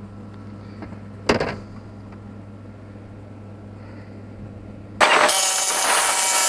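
A low steady hum with a single knock about a second in; then, about five seconds in, a cordless jigsaw starts suddenly and cuts loudly into a fibreglass panel.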